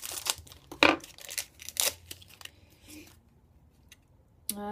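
Plastic film wrapper of a pack of vegan cheese slices being cut and torn open, crinkling and rustling in a string of sharp bursts over the first two seconds or so, the loudest about a second in, then only faint handling.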